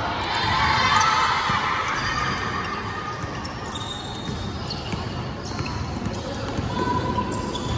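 Game noise from a basketball game in a big echoing gym hall: the ball bouncing and players' feet running on the court floor, with scattered voices calling out.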